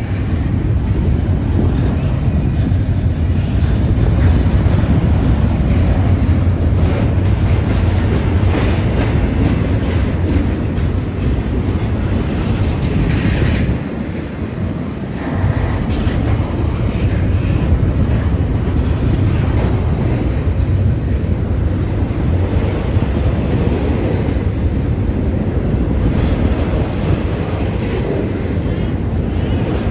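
Intermodal freight train's container cars rolling past in a steady low rumble, with wheels clacking over rail joints. The sound eases briefly about halfway through, then carries on.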